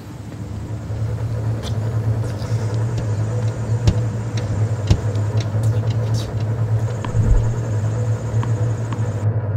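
A steady low rumbling hum that swells in over the first two seconds and then holds, with scattered sharp ticks and knocks over it.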